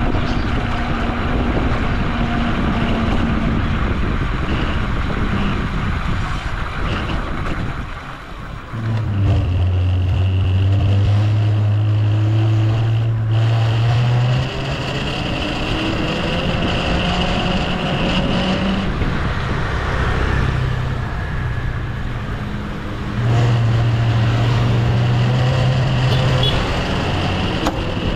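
Vehicle noise: a steady rumbling hiss, with a low steady hum that sets in about nine seconds in, stops a few seconds later, and returns near the end.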